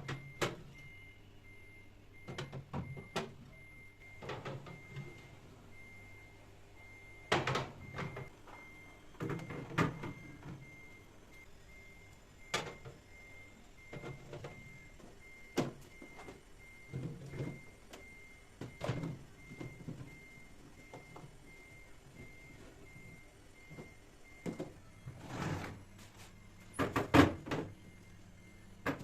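Household handling sounds: scattered knocks, clicks and clatter of objects and containers being picked up and set down, the busiest cluster near the end, over a faint steady low hum.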